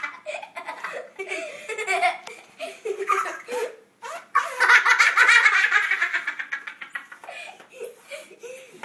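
Boys laughing hard in repeated giggling bursts, with a short pause before the loudest stretch about halfway through.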